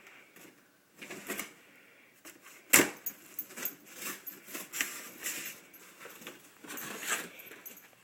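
Cardboard box and plastic packaging being handled as a BB gun is unpacked: irregular rustling, clicks and light clattering, with one sharp knock about three seconds in.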